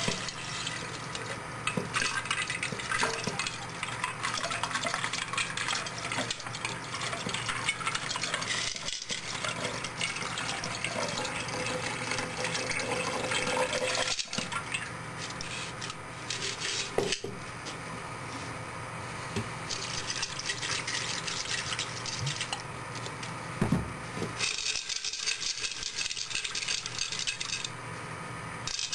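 A thin stream of acid solution pouring from a glass beaker onto ice cubes in a second glass beaker: a steady trickle and splash, with scattered sharp clinks of ice and glass.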